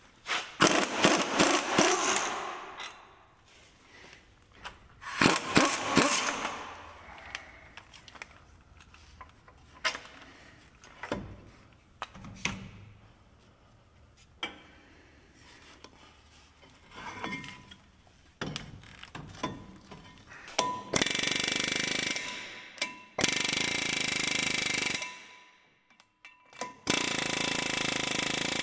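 Metal clanks and clatter of tools and brake parts at a truck's front wheel hub, with two loud stretches of rattling in the first few seconds and sparse clicks after. In the last third, a pneumatic impact wrench hammers on the front hub nut in three long bursts of a few seconds each.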